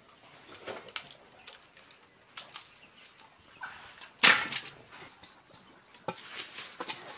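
Scattered rustling and scraping of hand work among garden plants and soil, with one louder hit a little past four seconds in.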